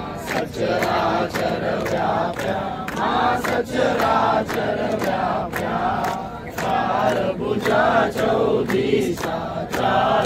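A crowd of men and women singing a devotional aarti to the Mother Goddess together, with steady hand clapping in time, a little over two claps a second.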